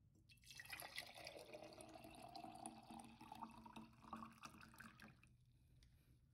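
Citrus juice poured from a plastic pitcher into a glass mason-jar mug, a faint splashing fill that starts just after the beginning and stops about five seconds in.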